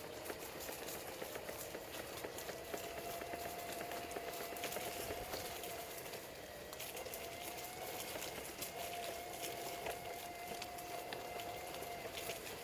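Footsteps crunching along a leaf-strewn trail, with many irregular small crackles, over a faint steady hum.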